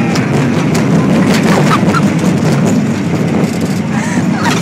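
Kiddie roller coaster car running along its track: a steady loud rumble and rattle with scattered clicks, mixed with wind buffeting the microphone, and a few faint short rising squeaks.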